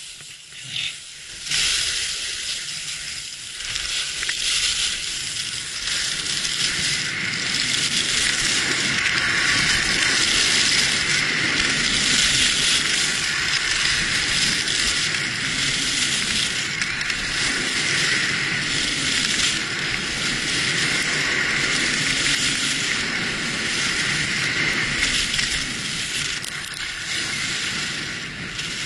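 Skis sliding over packed piste snow at speed: a continuous scraping hiss from the skis, swelling and easing with the turns. It is quieter for the first second or so, then steady.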